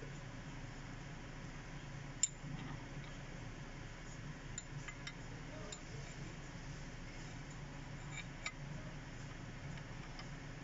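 A few faint, sharp metallic clicks and clinks, one louder about two seconds in, over a low steady background hum.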